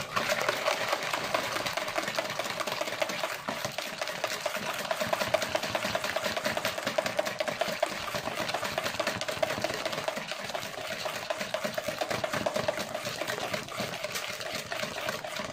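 Wire balloon whisk beating a runny batter of eggs, sugar and oil in a plastic bowl by hand: a fast, steady clatter of whisk strokes against the bowl.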